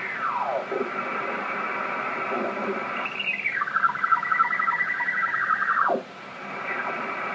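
Icom IC-781 transceiver's speaker receiving single-sideband signals on the 20-metre band while its tuning knob is turned, over steady band hiss. The off-tune signals glide down in pitch as the dial passes them: once near the start, and again about three seconds in, where one holds steady for about two seconds before dropping away sharply.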